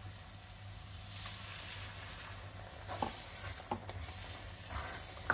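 Onion-tomato masala sizzling in a pan as half a cup of hot water goes in, the hiss swelling for a second or two. A black spatula then stirs it, with a few sharp scrapes and knocks against the pan near the end.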